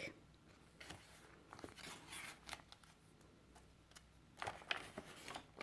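Faint rustling and crinkling of paper as the pages and tucked-in pieces of a handmade paper journal are handled and turned, a little louder near the end.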